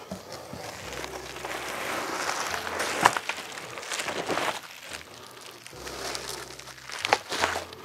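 Plastic-wrapped parts rustling and crinkling as they are lifted out of a cardboard box, with a few sharp knocks along the way.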